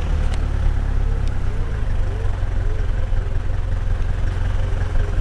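Low, steady rumble of an SUV's engine and its tyres on a rough gravel track, heard from the vehicle at slow speed, with faint short rising-and-falling squeaks repeating about twice a second.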